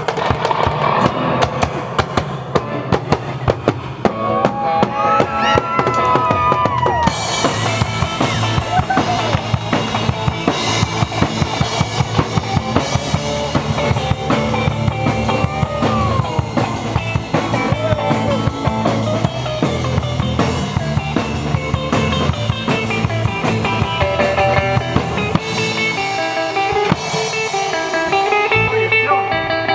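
Live rock band playing: a drum kit keeps a steady beat under amplified electric guitars and bass, with the cymbals coming in strongly about seven seconds in.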